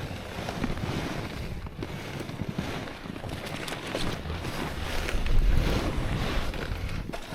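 Footsteps crunching on hard crusted snow, with a loaded sled sliding along behind. Wind buffets the microphone, rumbling loudest about five seconds in.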